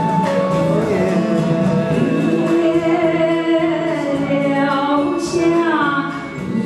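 A karaoke backing track playing, with a woman singing along into a microphone.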